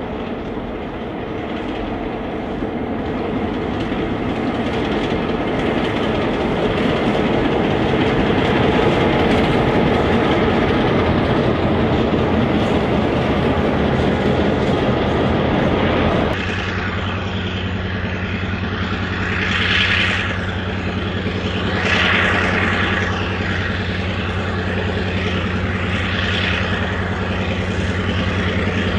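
Narrow-gauge diesel-electric locomotives passing close, with engine and wheel-on-rail rumble. About halfway through, the sound changes abruptly to another diesel locomotive hauling ore wagons as it approaches: a steady low engine drone with recurring short surges of higher-pitched wheel noise.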